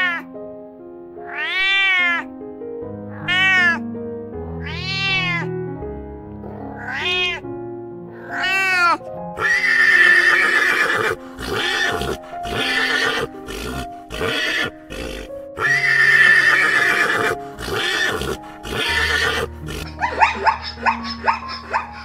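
A domestic cat meowing over and over, about six meows at roughly a second and a half apart. Then a pony neighs in several loud bursts. Near the end a run of short, quick barking calls begins. Soft background music plays under it all.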